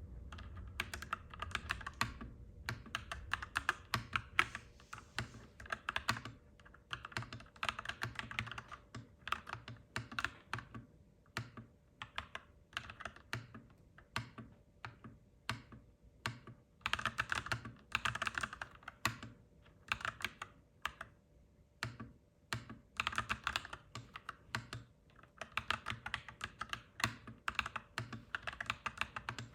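Clacky mechanical keyboard being typed on: quick runs of keystrokes broken by short pauses and scattered single key presses, over a faint steady hum.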